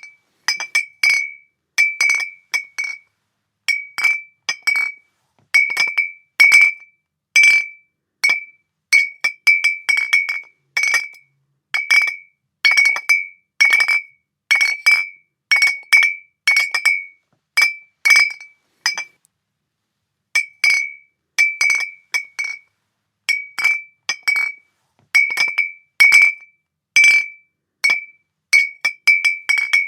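Glass bottles clinking against each other: a long run of sharp, irregular clinks, often in quick pairs, each ringing briefly with the same high tone, with a short pause about two-thirds of the way through.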